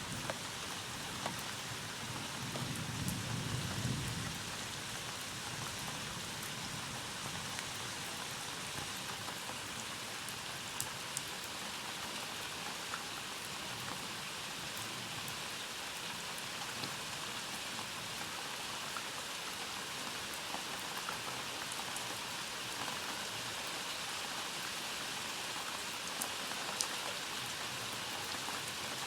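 Steady rain falling, with scattered drip ticks, and a brief low rumble of thunder about three seconds in.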